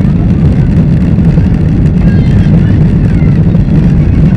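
Boeing 737-800's CFM56 jet engines at takeoff power during the initial climb, heard inside the cabin as a loud, steady low rumble.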